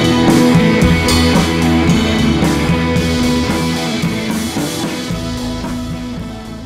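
Background music with a steady beat, fading out toward the end.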